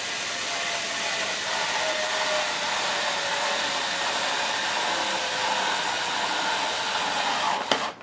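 Cordless electric screwdriver running steadily while driving a screw back into a vacuum cleaner's base plate, its whine sinking slightly in pitch before it stops with a click near the end.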